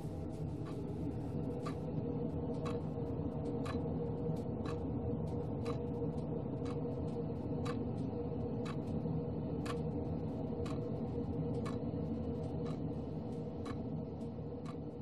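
Clock ticking steadily, about two ticks a second, over a steady low hum.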